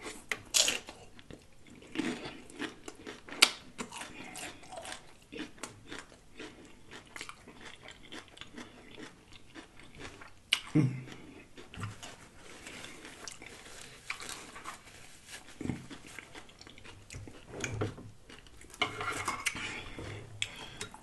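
Close-miked chewing and biting as a man eats shrimp nachos, tortilla chips crunching between the teeth in many short, sharp crackles.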